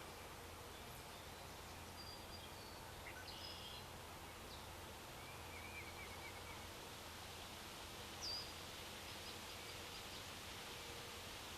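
Faint outdoor ambience with a steady low hum and distant songbirds giving a few short, high chirps and a brief trill, the loudest a sharp call about eight seconds in.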